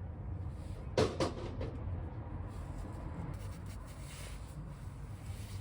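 Two sharp knocks close together about a second in, then scattered light clicks and taps, from brake pads and tools being handled, over a steady low rumble.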